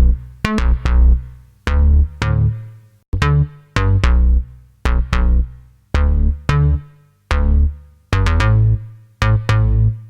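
Soloed bass track playing a syncopated line of short, low notes. Each note is struck hard and dies away quickly, about two notes a second.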